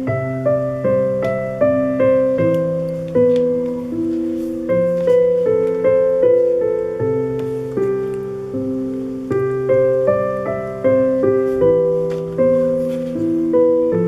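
Background piano music: a slow, gentle melody over held chords, notes struck about twice a second.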